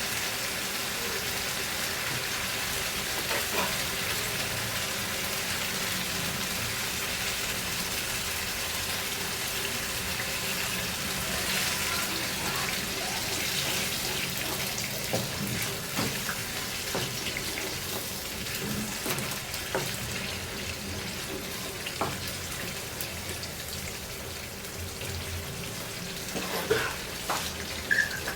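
Tomato and coconut cream sauce simmering and sizzling in a cooking pot: a steady hiss, with a few scattered clicks near the middle and end.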